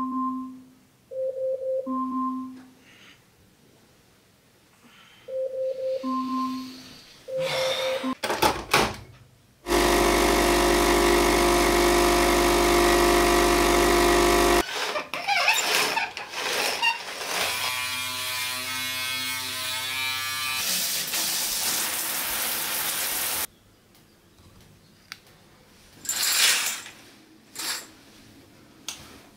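An alarm beeping in a repeating two-note pattern, then a capsule coffee machine's pump buzzing steadily for about five seconds, followed by coffee running into a mug. A few soft handling sounds near the end.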